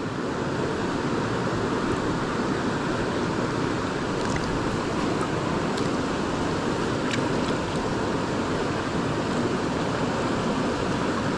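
Steady rush of a mountain river's current flowing close by.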